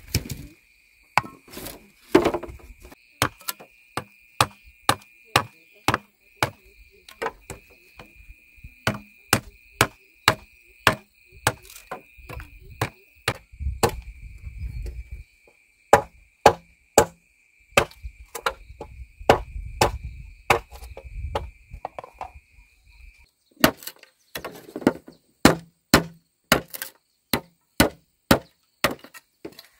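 Machete blade chopping into a green bamboo pole, repeated sharp strokes about two a second with a short pause near the end. A steady high insect buzz runs underneath and stops about three quarters of the way through.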